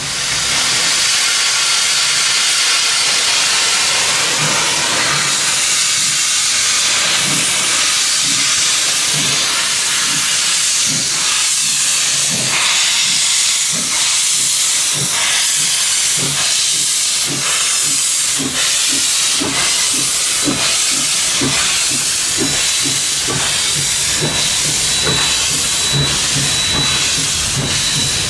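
C17 class steam locomotive pulling away: a loud, steady hiss of steam, with exhaust chuffs that come in after several seconds and gradually quicken as the engine gathers speed.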